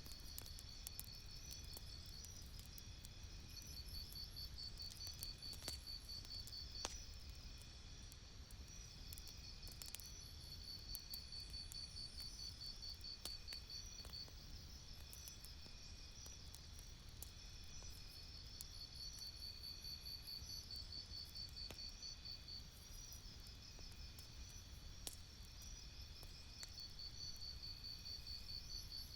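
A campfire crackling with sparse sharp pops over a low, steady rumble, while crickets chirp in continuous high, pulsed trills.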